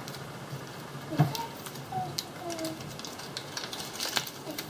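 Small plastic Kinder Surprise toy parts clicking and tapping as they are handled and fitted together, with a sharper click about a second in and another near the end.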